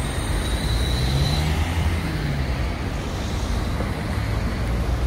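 Street traffic passing close by: steady road noise of cars with a low engine hum, and a faint high whine in the first second and a half.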